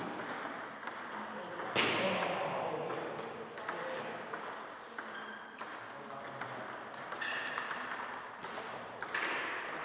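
Table tennis rally: the ball clicking off the bats and bouncing on the table, with a louder sudden sound about two seconds in.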